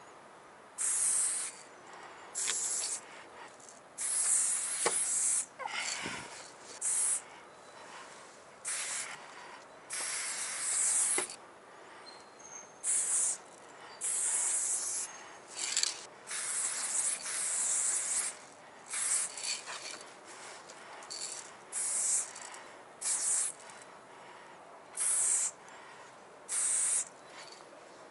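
Aerosol spray-paint can hissing in short bursts, about twenty in a row, each from a fraction of a second to about a second and a half long, as graffiti lines are sprayed onto a wall.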